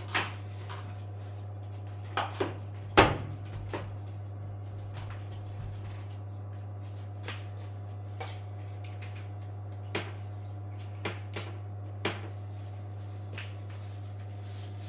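Scattered knocks and clicks of washing-machine parts and tools being handled, the loudest about three seconds in, over a steady low hum.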